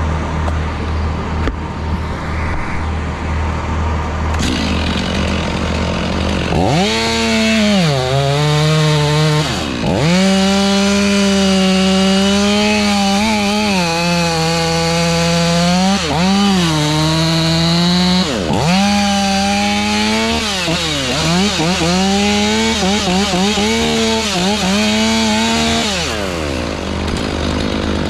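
Two-stroke chainsaw cutting wood. It revs up about six seconds in and runs at full throttle, its pitch dipping again and again as it bogs in the cut, then drops off near the end. A steady low engine hum runs underneath throughout.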